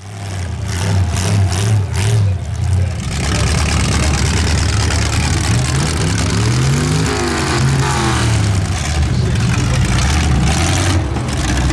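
Several demolition derby cars' engines running loud and rough. One engine revs up and back down in the middle.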